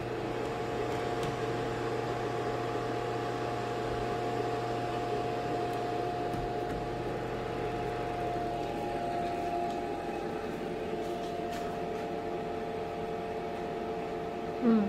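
Electric food dehydrator (Presto Dehydro) running steadily, its fan giving an even hum with a faint steady tone, while apple slices dry on its trays.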